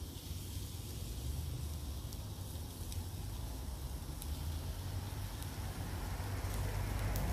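Pork chop sizzling in a ribbed griddle pan over a gas burner, a fine steady hiss with a few faint ticks over a low rumble, growing a little louder in the second half.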